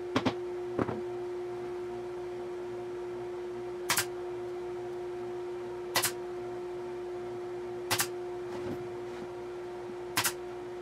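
A few light claw-hammer taps near the start, then a pneumatic 18-gauge brad nailer firing four times, about every two seconds, each shot a sharp crack, over a steady low hum.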